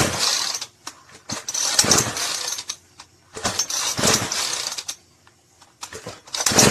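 Small gas string trimmer engine on full choke being pull-started: about four pulls of the recoil starter, each a short burst of rope whirr and cranking, until the engine catches and starts running at the very end.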